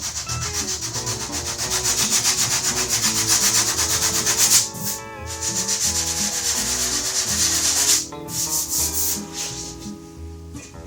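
80-grit sandpaper rubbed quickly back and forth over a dent in a car body panel in fast, even scratchy strokes, scuffing the surface so body filler will adhere. It pauses briefly about halfway and again near the end, and gets lighter in the last couple of seconds.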